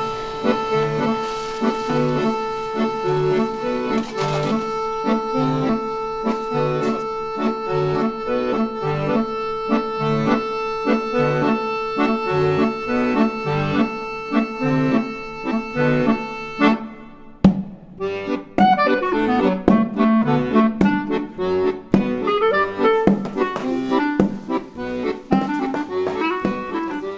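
Background music: held chords over a steady, even bass pulse. About two-thirds through it breaks off briefly and goes on in a busier passage of short, quick notes.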